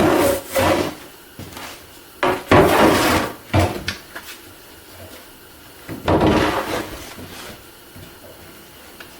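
Large hand plane with a shallow-set blade shaving a glued-up wooden board: several long sliding strokes, each about a second long, a few seconds apart, with a short one after the second.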